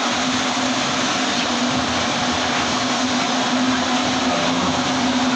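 TIG welding arc burning steadily: an even, continuous hiss with a steady low hum underneath.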